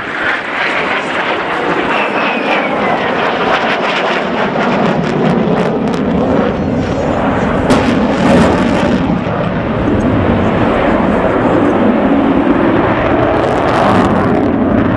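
Fighter jet engine noise from an aircraft flying overhead: a steady, heavy rumbling jet noise, with a brief falling whine about two seconds in and a slight swell near the middle.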